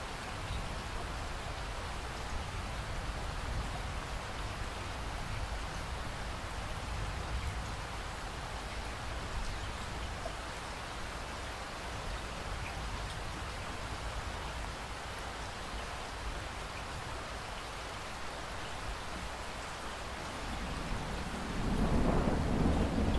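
Thunderstorm: steady rain falling with a low rumble underneath. Near the end a louder peal of thunder rolls in.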